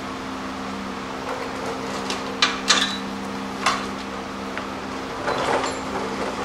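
The steel factory transmission crossmember and a wrench clank as the crossmember is unbolted and lowered from under the truck. There are a few sharp metal clanks around two and a half to four seconds in, then a brief rattle of handling near the end, over a steady background hum.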